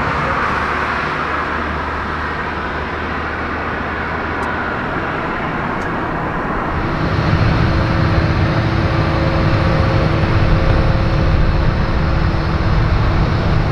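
Steady rushing hum of a parked Boeing 777 freighter on the apron, with a small ground vehicle's engine getting louder from about seven seconds in as a tractor moves boarding stairs up to the aircraft.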